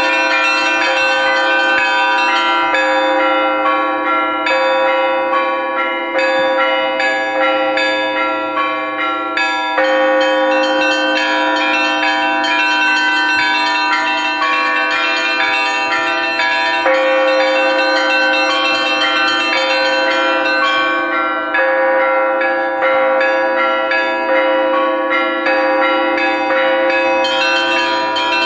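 Russian Orthodox church bells rung in a continuous peal: many bells struck in quick succession over the steady hum of the larger bells.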